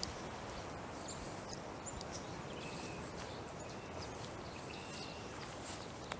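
Steady outdoor background hiss with faint scattered clicks and two brief high chirps, one a little after two seconds and one about five seconds in.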